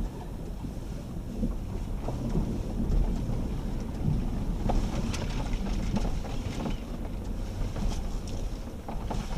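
Low rumble of a Jeep WK2 Grand Cherokee rolling slowly over a rocky dirt road, with scattered knocks and rattles from the rough ground.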